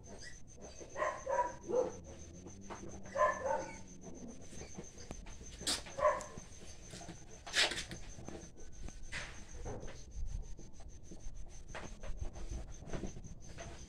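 Short animal calls, some in pairs, about one, three, six and seven and a half seconds in, over a faint steady high-pitched whine.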